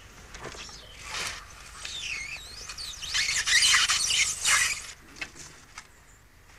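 Squeaking of rope and a giant needle rubbing through sheets of expanded polystyrene as a lock stitch is pulled tight, with a few knocks. The squeaks waver in pitch and are loudest from about three to five seconds in, then die down.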